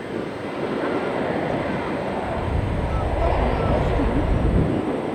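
Jet engines of an Airbus A320-200 at takeoff power on departure: a steady rush of noise with a deep rumble that grows louder about halfway through, then eases near the end.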